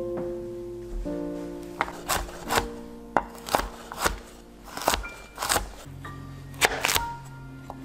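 Chef's knife slicing a zucchini and knocking on a wooden cutting board: about a dozen irregular cuts, over background music.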